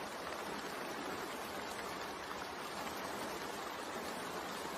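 Steady rain sound: an even hiss of falling rain, with no changes.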